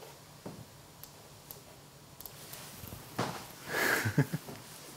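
Quiet room with a few faint clicks as a laptop is worked, then about three seconds in a short laugh from a person.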